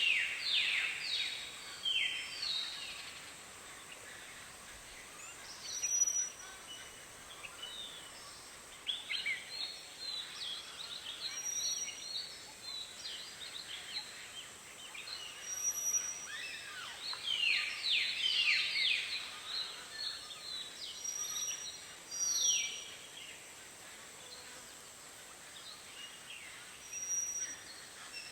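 Tropical birds calling at a watering hole: bunches of quick, downward-sweeping chirps that come and go, with short high peeps every few seconds over a steady high hiss.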